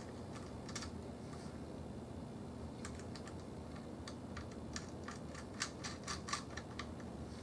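Light, sharp clicks of a cable lug and terminal bolt being fitted and hand-tightened on a wheelchair battery's lead terminal: a few at first, then a quick, irregular run of clicks from about three seconds in.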